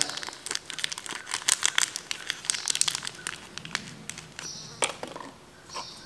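Crinkling and crackling of a small pheromone lure packet being handled and opened with gloved hands: dense crackles for the first half, then sparser, with one sharper click toward the end.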